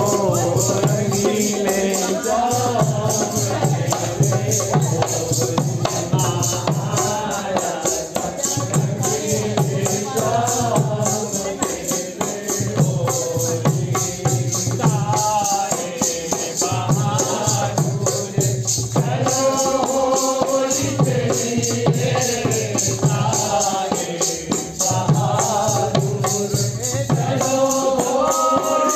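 Hindu devotional group singing with a steady repeating beat of percussion underneath.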